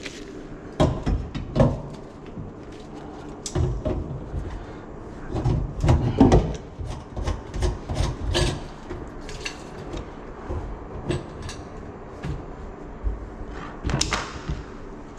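Irregular knocks and clatter of metal drain pipes, fittings and tools being handled and set down against a sink cabinet, over a faint steady hum. The loudest knocks come about a second in, around six seconds and near the end.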